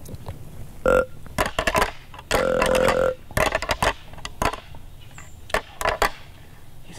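Two low, burp-like deer grunts: a short one about a second in and a longer, held one about two and a half seconds in, with scattered clicks and rustles between.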